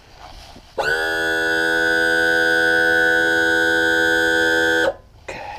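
Electric power trim-and-tilt motor of a Mercury 60 hp four-stroke outboard running to tilt the motor up: a steady whine that comes in suddenly about a second in, rising slightly in pitch as it gets going, holds for about four seconds, then cuts off abruptly.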